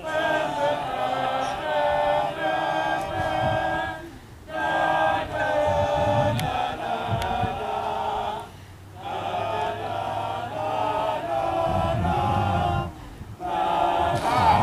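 A group of voices singing or vocalising a tune together without instruments, in held phrases of about four seconds that break off briefly three times, as for a breath.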